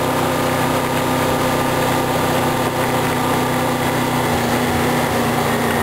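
Honda VFR800 Interceptor's V4 engine running at a steady, even speed while the bike is ridden, heard from on the motorcycle, with a steady rush of wind and road noise.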